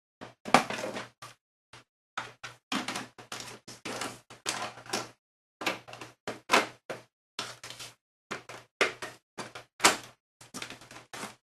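Sheet-metal side panel of a Compaq Evo desktop case being slid back onto the chassis: an irregular run of scrapes, clicks and clunks.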